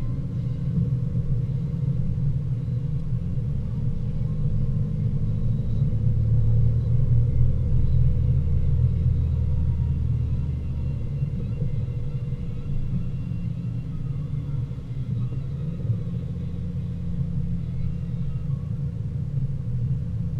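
Steady low engine and road rumble inside the cabin of a Mercedes ML350 4matic climbing a mountain road. It swells louder for a few seconds around the middle, then settles back.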